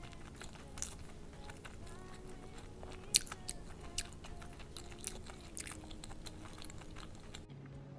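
Close-miked chewing and biting of fried rice with duck intestines and gizzards: wet clicks and crunches throughout, the loudest about three seconds in. A low steady hum starts near the end.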